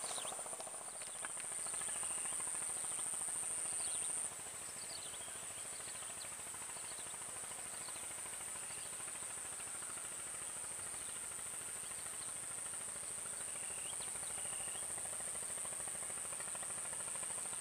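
Steady, high-pitched drone of swamp insects, a little quieter after about four seconds, with scattered short chirps.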